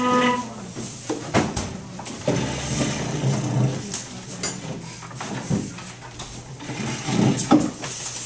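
Classroom bustle: many scattered knocks and clicks of desks, chairs and boards being handled, under a low murmur of students' voices.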